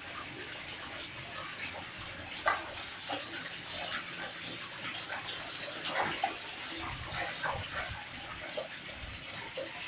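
Wet splashing and slapping as a hand rummages among freshly caught tilapia in a bucket of water, the fish sliding against each other. The small splashes come irregularly, with louder ones about two and a half and six seconds in.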